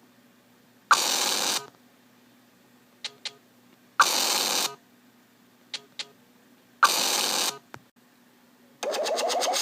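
iPad Mini speaker glitching: pairs of short ticks alternate with loud bursts of harsh static, each well under a second long, repeating about every three seconds. Near the end comes a rapid buzzing, rattling burst. The uploader puts the abnormal sound down to corrupted data carried over from a backup, cured only by a fresh restore.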